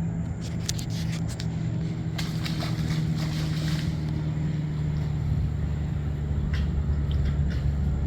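An engine running steadily, a low hum that grows deeper and stronger in the second half, with a few light clicks in the middle.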